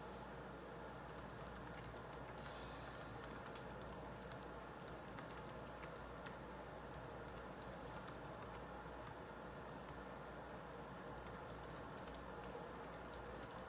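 Thick tomato-and-lamb bolognese sauce bubbling in a skillet, its bubbles bursting in faint, irregular popping clicks that start about a second in.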